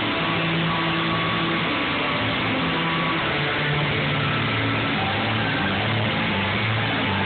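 Live rock band playing loudly, with distorted electric guitars and bass holding long low notes that shift from pitch to pitch.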